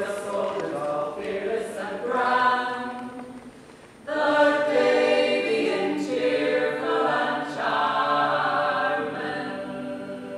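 Several voices singing together unaccompanied, in harmony, with long held notes. The singing dips about four seconds in, comes back louder, and fades near the end.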